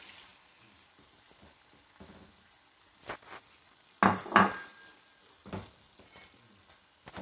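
A cooking utensil stirring in a pan as cornstarch goes into the sauce: a few sharp metal clanks against the pan, the loudest pair about four seconds in with a brief ring, over a faint sizzle.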